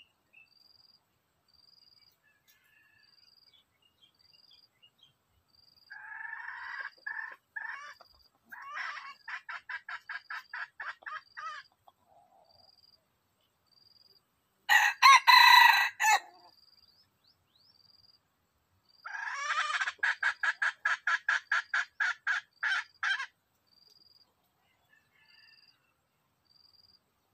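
Red junglefowl calling: a short, loud crow about halfway through, set between rapid runs of clucks at about four a second. A faint, evenly repeated high chirp runs underneath.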